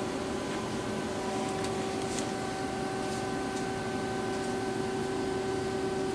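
Lucas horizontal boring mill running under power: a steady even hum with a few faint ticks.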